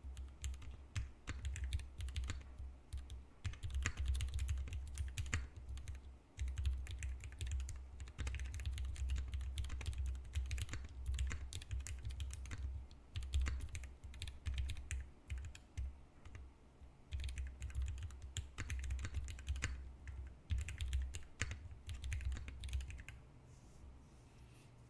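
Typing on a custom 60% mechanical keyboard with vintage Cherry MX Black linear switches lubed with Krytox 107, a brass plate and GMK keycaps: runs of quick keystrokes with short pauses, stopping near the end.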